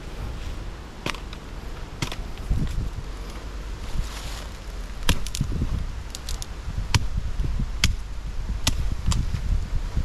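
About ten sharp knocks or snaps at irregular intervals, over a steady low rumble.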